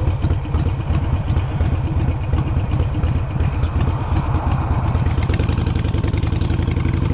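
Harley-Davidson Sportster's air-cooled V-twin, bored out to 1275 cc with a Hammer big-bore kit, running with a steady low pulsing beat. The engine is new and in its break-in period.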